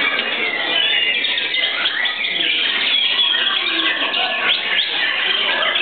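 Dense chorus of white-rumped shamas singing at once: many overlapping quick whistles, chirps and trills with no pause.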